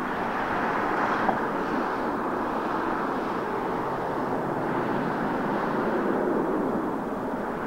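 Boeing 737-800 jet engines (CFM56-7B turbofans) giving a steady rushing noise as the airliner comes in to land.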